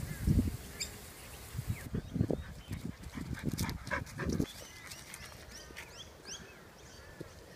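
Australian cattle dog giving a run of short, high yips and barks, with a few low thumps among them, loudest in the first half.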